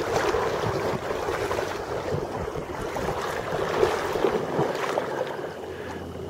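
Shallow river water rushing and sloshing, with wind noise on the microphone, easing off toward the end.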